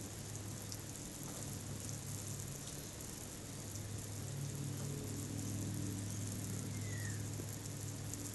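Garden hose spraying water with a steady hiss over a low steady hum, and a short falling chirp about seven seconds in.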